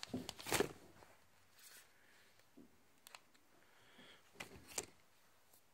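Faint handling noises from sorting through small packs of stick-on fly eyes: a few soft rustles and clicks, a sharp pair of clicks about three seconds in and a short cluster about four and a half seconds in.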